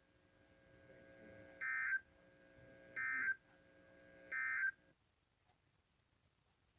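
Three short bursts of the Emergency Alert System end-of-message data signal (the SAME 'NNNN' code) from NOAA Weather Radio, each about a third of a second long and a little over a second apart, marking the end of the alert broadcast. A faint steady hum lies under them.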